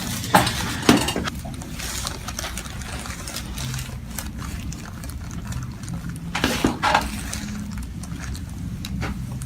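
Joints cracking under chiropractic adjustments: two sharp pops within the first second, then two more about six and a half seconds in, over a steady low hum.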